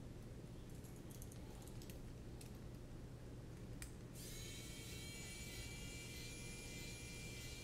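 Faint clicks of small parts being handled, then, about halfway through, a small electric precision screwdriver starts up with a steady high whine as it drives a tiny screw into a drone flight-controller stack.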